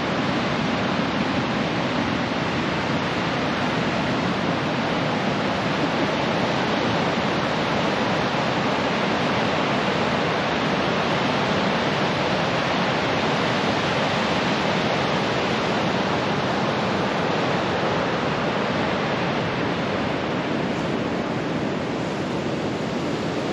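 Ocean surf washing onto a beach: a steady, even rushing noise that eases slightly near the end.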